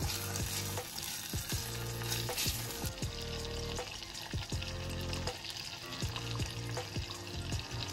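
Butter and bacon sizzling as they fry in an enamel saucepan, stirred with a spatula that clicks and scrapes against the pan at irregular moments.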